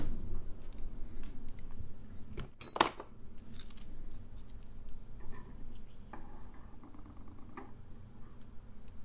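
Small hand tools handled on a wooden workbench: light clicks and taps, with one sharp click a little under three seconds in.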